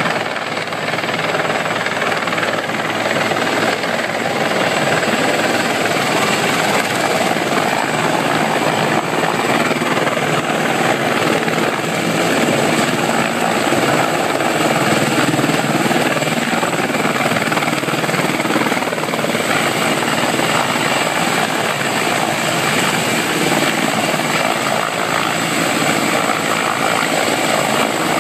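A CH-53 heavy transport helicopter, powered by twin turboshafts, hovering low with a sandbag load slung beneath it. Its rotor and engines make a loud, steady noise with a thin high whine over it.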